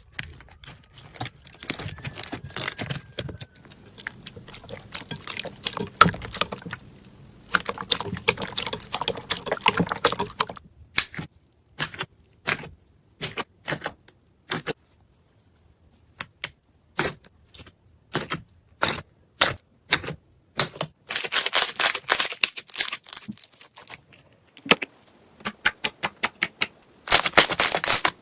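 Slime being handled, with crackling and squishing, then a series of separate sharp clicks and pops with short silences between. A second dense crackling patch follows, and a quick run of clicks comes near the end.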